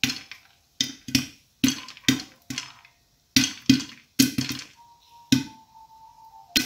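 Popcorn kernels popping inside a covered aluminium pressure cooker: about a dozen sharp pops at irregular intervals, each a short knock against the pot and lid.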